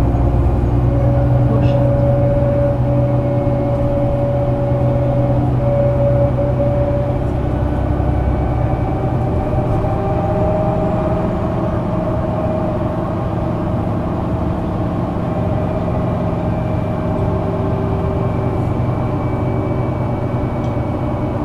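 Solaris Urbino 12 III city bus's Euro 6 diesel running, a steady low hum with a whine that drifts slowly up and down in pitch.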